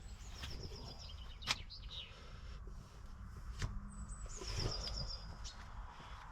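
A small bird singing the same short, high phrase twice: a note sliding down into a quick run of short notes. Two sharp clicks come about a second and a half in and again after three and a half seconds.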